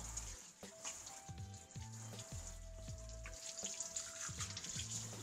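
Pull-down kitchen faucet running in spray mode, water falling on hands and into a stainless steel sink as hands are rinsed; the spray starts right at the beginning. Background music with a repeating bass line plays underneath.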